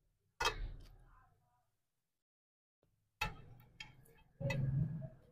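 Close-miked eating sounds: fingers working rice on steel plates and chewing of mouthfuls, in a few short bursts with a sharp start, with a second or so of near silence in the middle.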